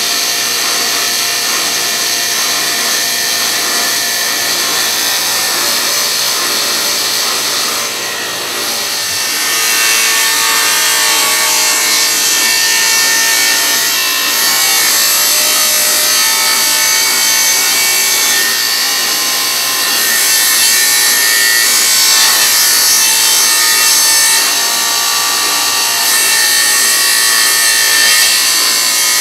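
Electric table saw running and ripping through a wooden board, a steady loud cutting noise that grows louder about ten seconds in.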